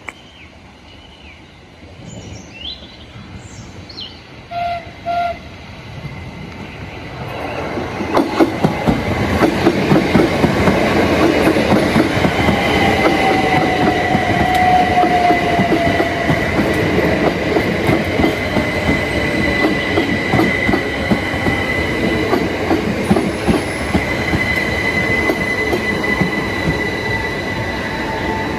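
Southeastern electric multiple-unit train approaching and running along the track: two short horn toots about five seconds in, then loud wheel-on-rail rumble with clicks over the rail joints and a steady high-pitched wheel squeal, with a second squeal gliding down in pitch partway through.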